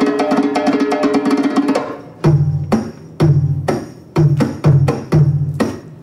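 Belly dance drum solo music played on Arabic hand drums: a fast run of rolled strokes, then from about two seconds in, heavy deep strokes with short breaks between them, a strong one about once a second and a lighter one in between.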